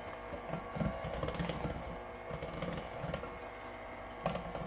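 Electric hand mixer running, its beaters whipping cream in a stainless steel bowl: a steady motor hum with irregular rattles and knocks, loudest about a second in, and a sharp click near the end.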